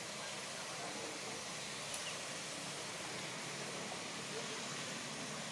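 Steady outdoor background hiss with no distinct events, and one faint click about two seconds in.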